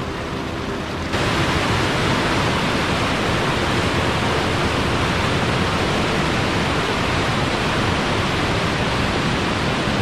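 Rushing white water pouring through a wooden river weir, a steady hiss of falling water that becomes louder about a second in.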